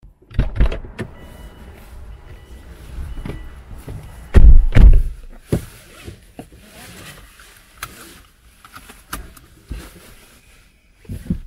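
Two people getting into a 2005 Subaru Forester STi, heard from inside the cabin: shuffling and thumps as they sit, the two front doors shutting with heavy thumps about half a second apart a little before the halfway point, then seatbelt buckles clicking into their latches. A faint, repeating high beep sounds in the first few seconds.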